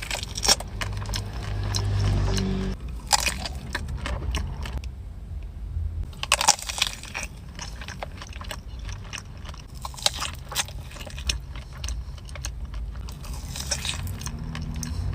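Close-up eating sounds of dessert pastries: sharp bites and crackles, crunching and chewing, in irregular clusters.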